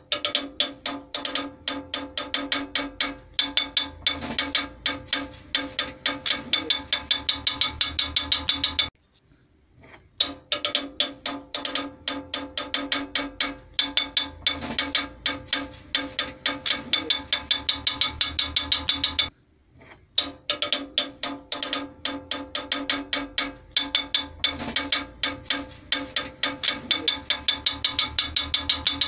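Background music with a fast ticking, clicking beat over steady pitched notes. It breaks off twice for about a second.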